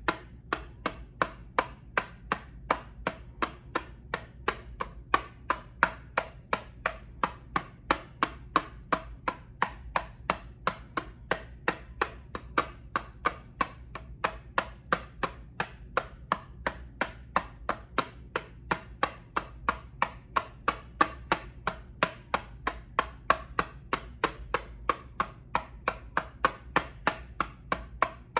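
Steady, evenly paced tapping on an eyeshadow palette, about three sharp taps a second.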